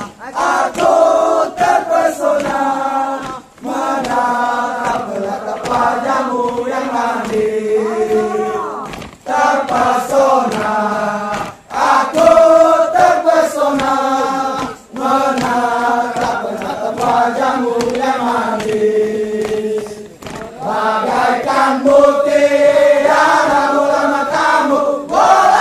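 A group of men chanting and singing a Scout yell (yel-yel) together in unison, loud, in phrases of a few seconds broken by short pauses.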